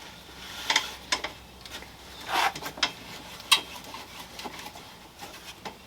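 A few irregular light knocks and clicks with a short scrape a couple of seconds in: pine boards being handled and set on a workbench.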